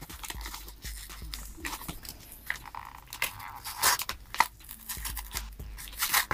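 Cardboard shipping box being torn open by hand, with the plastic wrapping inside crinkling: irregular crunches and rips, a few louder ones scattered through.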